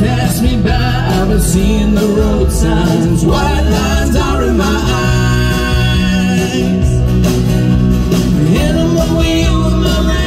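Live country-rock music: acoustic guitars strummed and picked, with male voices singing.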